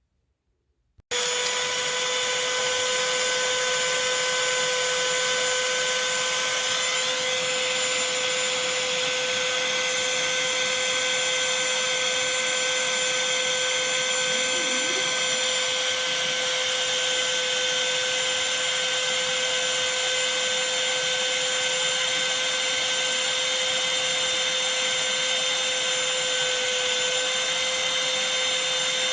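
Black+Decker cordless handheld vacuum switched on about a second in and running steadily, a constant motor whine with one strong steady tone.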